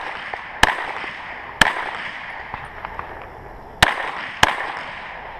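Four shots from a 9mm Glock pistol, each followed by a short echo: two about a second apart, then a pause of about two seconds and a quick pair.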